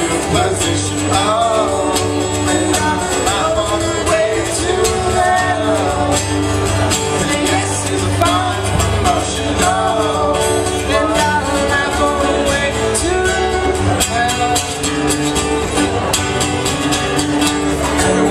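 Three acoustic guitars strumming a song live, with a wavering melody line above the chords.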